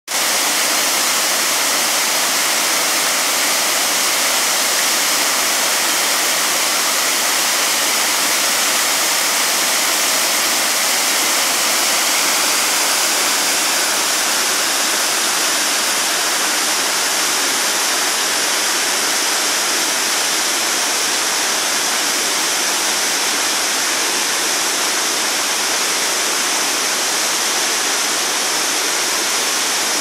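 A big waterfall with several strands plunging into a pool: a steady, unbroken rush of falling water.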